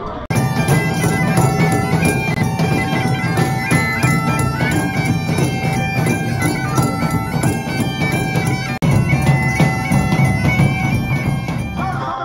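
Bagpipes playing a tune over a steady low drone, with a drum beating along. The music cuts in abruptly just after the start and drops out for an instant about three-quarters of the way through.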